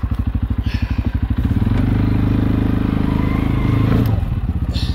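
ATV engine ticking over at idle, then throttled up about a second and a half in and held at higher revs for about two and a half seconds, dropping back to idle near the end. It is driving the quad backwards on slippery snow during a many-point turn.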